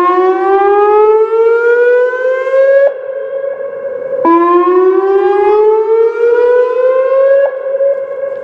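Whelen WPS-2805 electronic warning siren sounding its whoop signal, the chemical-release alert, on test. Two long rising sweeps, each about three seconds, the second starting about four seconds in, with a steady tone carrying on between them.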